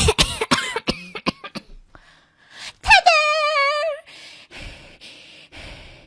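A woman's voice making mouth sound effects: a run of quick sharp bursts, then a held warbling note about a second long, then a steady series of short breathy hisses about twice a second.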